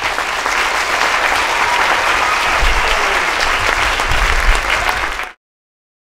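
Audience applauding, cut off suddenly after about five seconds.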